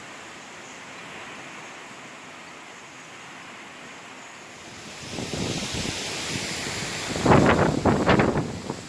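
Hurricane wind rushing, with a steady hiss that grows louder about five seconds in. Near the end, a run of strong gusts buffets the microphone.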